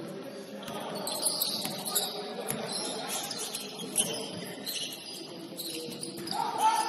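Basketball game sounds on a gym court: sneakers squeaking in short high chirps, with a basketball bouncing on the floor.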